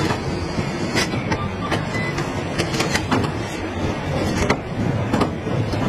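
Car assembly-line factory noise: a steady machinery hum with irregular sharp metallic clicks and clanks.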